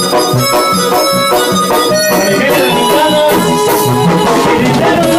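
An amplified live regional Mexican band playing an instrumental passage: a keyboard melody over drum kit and bass guitar with a steady beat.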